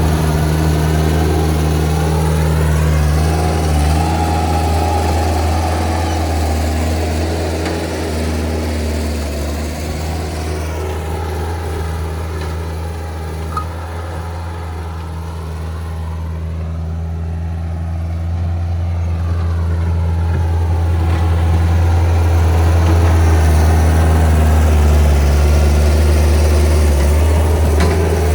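Bobcat T190 track loader's diesel engine running steadily while working loose driveway material, with a wavering whine above the engine note. The sound eases off somewhat around the middle and grows louder again in the last third.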